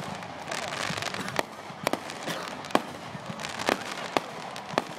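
Fireworks going off: sharp pops and bangs, about a dozen in five seconds, over a steady crackle.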